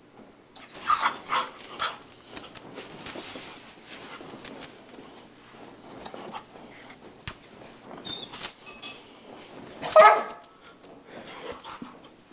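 Airedale terrier scratching and digging at the carpet with its paws, with excited whimpers and a loud cry about ten seconds in. The dog is worked up by pipes vibrating under the floor.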